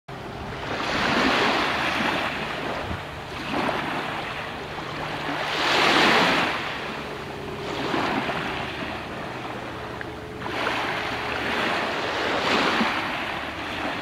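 Small waves of a calm sea washing up and drawing back on a pebble beach, one swash every two seconds or so, the loudest about six seconds in.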